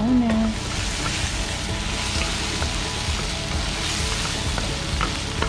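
Ground pork and onions sizzling steadily in a wok, stirred with a wooden spatula that scrapes and pushes the meat around the pan.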